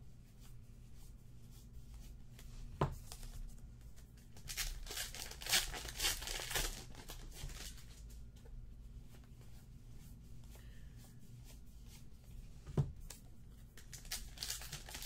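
2017 Topps Archives baseball card pack wrappers being torn open and crinkled, in bursts from about four seconds in and again near the end, with cards handled in between. A sharp tap sounds about three seconds in and another just before the end.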